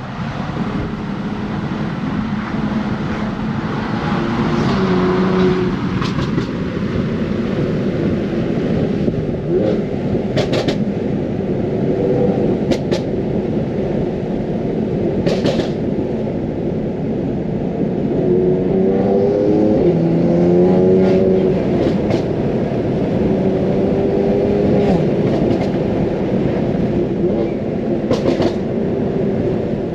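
Straight-piped 2015 BMW F80 M3 with a twin-turbo inline-six, M Performance exhaust and secondary cat delete, driven hard: the engine revs up and falls back again and again as it pulls through the gears. A few sharp cracks come through along the way.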